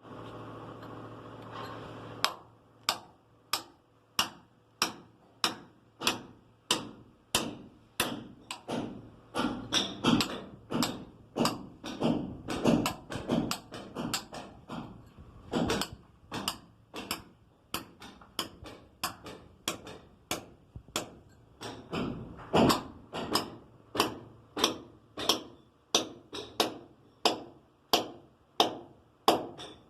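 Hammer blows struck at a steady pace, about three every two seconds, each a sharp knock with a short ring, starting about two seconds in.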